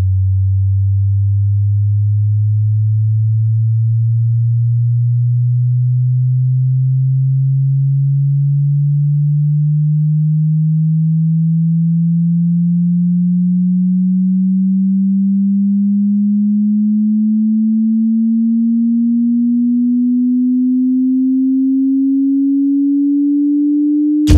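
Synthesised electronic build-up riser in a soundtrack: a single low pure tone gliding slowly upward in pitch, with swells in loudness that come quicker and quicker toward the end.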